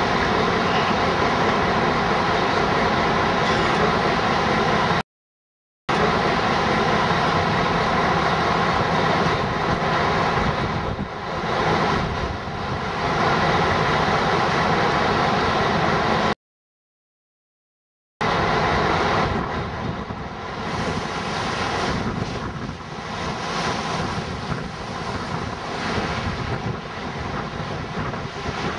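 Loud, dense droning noise with several steady tones held through it, like heavy machinery. It cuts off abruptly to dead silence twice: about five seconds in for under a second, and about sixteen seconds in for nearly two seconds.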